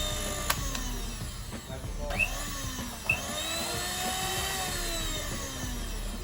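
Philips HR2115 blender motor running, its whine falling as it slows, rising as it speeds up again about two and a half seconds in, then falling again, with a few sharp clicks along the way.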